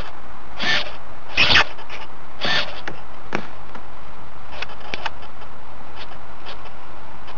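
Close rustling and scraping handling noise, a string of irregular short strokes that are strongest in the first half and fainter later. No engine or motor is heard.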